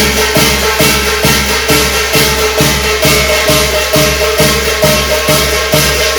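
Korean shamanic ritual (gut) music: steady percussion strokes about three a second under a few held tones, with a shaken rattle or jingle on top.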